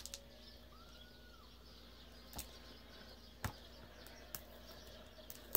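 Faint clicks and taps of fingers working at the lid of a small plastic slime container, trying to pry it open, with a faint chirp-like whistle about a second in.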